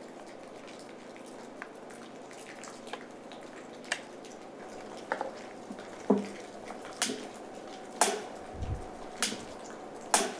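STIHL chainsaw's chain brake being tested with the engine off: the front hand guard is pushed forward and pulled back, snapping engaged and released in sharp plastic-and-metal clicks, about one a second from about four seconds in.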